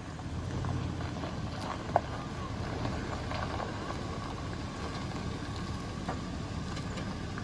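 A steady low rumble of an idling vehicle engine, with one sharp click about two seconds in.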